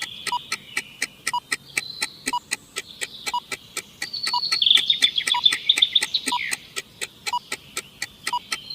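Countdown timer sound effect: steady fast ticking, about four ticks a second with a lower tick once a second, over a high chirping, bird-like warble.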